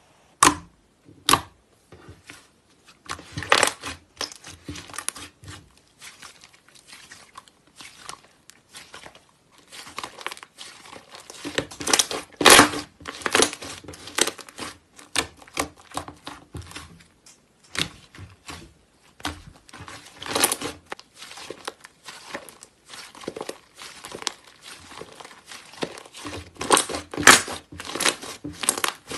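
Thick slime being pressed and squeezed by hand, giving dense, irregular clicks and pops as it is worked. The popping is loudest about twelve seconds in, again around twenty seconds, and near the end.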